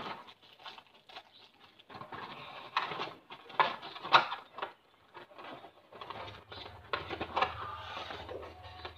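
Clear plastic packaging crinkling and rustling in short irregular bursts as earphones and their cable are worked out of a blister tray. A low steady hum comes in about six seconds in.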